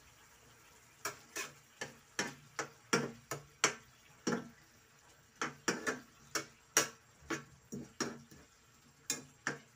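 A slotted metal spatula knocking and scraping against a nonstick frying pan as the food is stirred. There are irregular sharp clicks, about two or three a second, starting about a second in.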